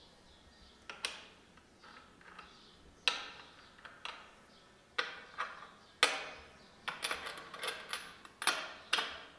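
Sharp metallic clinks and taps as a tubular spark-plug box spanner is fitted over bolt heads on a motorcycle frame, about a dozen at irregular intervals, several in quick succession near the end.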